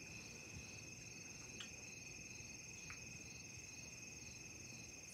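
Faint, steady high-pitched trilling of crickets, with an even pulsing to it, and two faint clicks in the middle.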